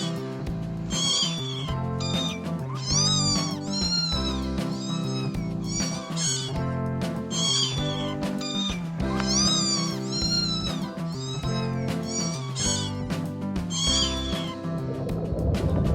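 A domestic cat meowing over and over, one short rising-and-falling meow after another, over background music. Near the end the meows stop and a rushing noise comes in.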